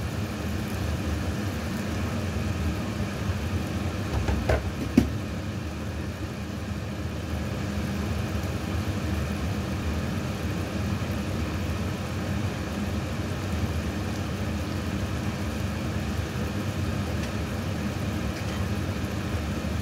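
A steady low mechanical hum with a whir, and one sharp click about five seconds in.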